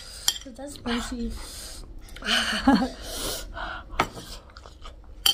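Short voice sounds and gasping breaths from people eating very hot dalle khursani chilli food, with two sharp clicks, one about four seconds in and one at the end.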